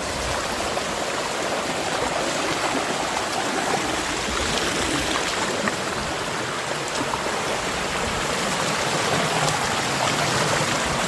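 Steady rushing and gurgling of a rocky jungle stream.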